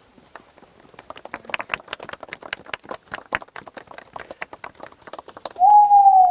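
A small group applauding, with dense, irregular claps that build and then thin out. Near the end a loud, clear single tone comes in, held for about a second and falling slightly in pitch.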